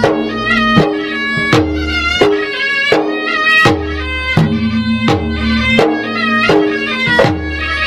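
Traditional Maros gendang ensemble music: gendang drums struck in a steady repeating pattern, with a strong stroke about every three-quarters of a second, under a sustained wind-instrument melody.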